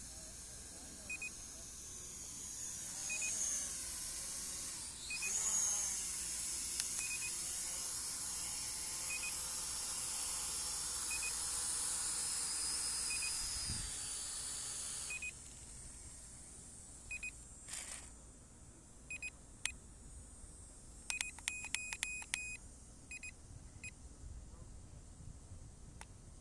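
A short electronic double beep repeating about every two seconds, over a high-pitched whine and hiss that glides up sharply about five seconds in and cuts off suddenly about halfway through. After it comes a scattered run of sharp clicks and quick beeps.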